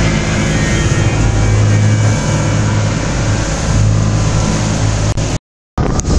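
Catamaran workboat's engine running steadily with a low drone, under a wash of wind and breaking sea. The sound cuts out for a moment about five seconds in.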